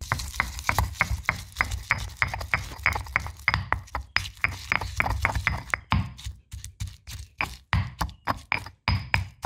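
Stone pestle pounding garlic cloves in a stone mortar: quick strikes of stone on stone crushing the cloves, about four or five a second, turning more irregular in the second half.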